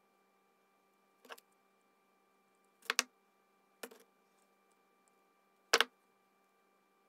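Four sharp clicks a second or two apart from small metal jewelry findings and a hand tool being handled on a wooden bench; the second is a quick double click and the last is the loudest.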